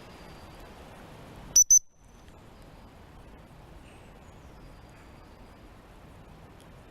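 Two quick, short blasts on an Acme 210.5 gundog whistle about a second and a half in, each a sharp, high-pitched pip: the two-whistle recall signal.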